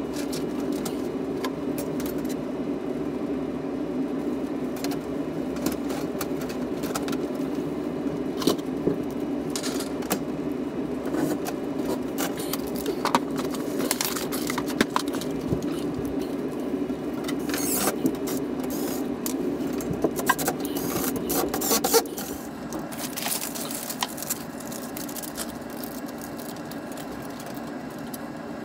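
Clinks, taps and scrapes of sheet-metal HVAC ductwork being handled and fitted, over a steady hum that drops away about 22 seconds in.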